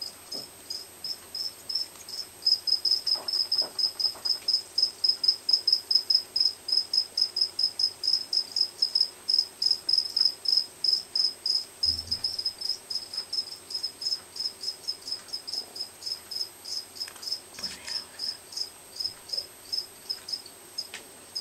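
A cricket chirping in a steady, even rhythm of about three to four high-pitched chirps a second, growing louder a couple of seconds in and easing off near the end.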